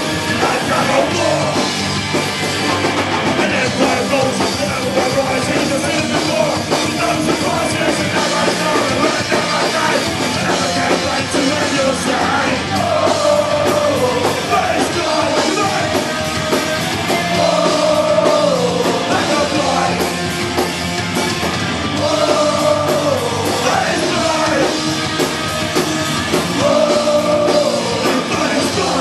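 Punk rock band playing live: shouted singing over distorted electric guitar and a drum kit.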